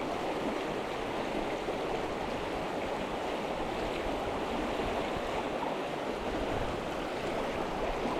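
Mountain river rushing steadily, its water running slightly high.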